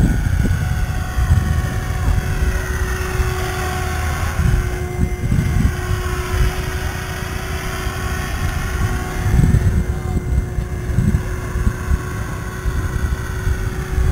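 Radio-controlled helicopter in flight: a steady motor and rotor whine whose higher tones sweep up and down as it passes across in front of the microphone. Gusts of wind rumble on the microphone underneath.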